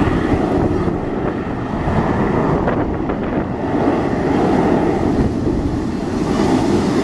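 Steady roar of a formation of Aermacchi MB-339 jet trainers' turbojet engines passing overhead, mixed with wind buffeting the microphone. The roar dips a little about three seconds in and swells again.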